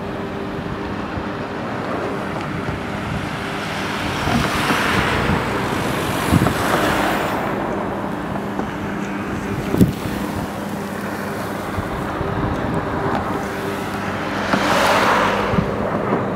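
Road traffic on a bridge: vehicles passing by, one swelling up and fading about four seconds in and another near the end, over a steady low hum. Two sharp knocks come in between.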